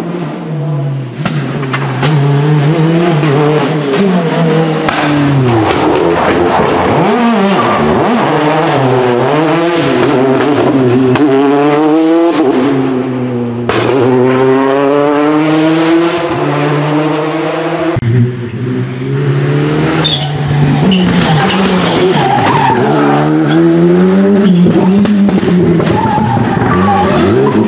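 Rally car engines at full stage pace, revving up and dropping back again and again through gear changes and braking, with tyre noise on tarmac. The sound cuts abruptly twice, as if edited between different cars.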